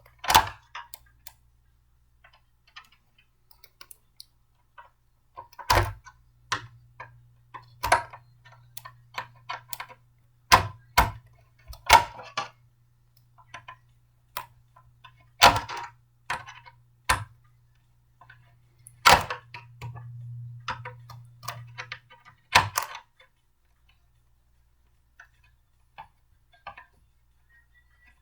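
Blender parts being handled and fitted together during assembly: about a dozen sharp, irregular clicks and knocks, with quiet stretches between them.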